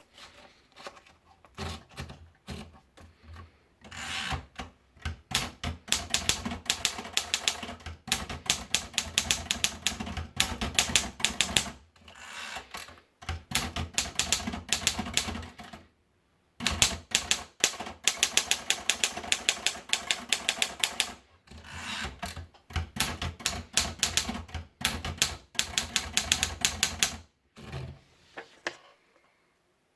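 Remington typewriter being typed on: fast runs of sharp key strikes, several a second, broken by short pauses, stopping near the end.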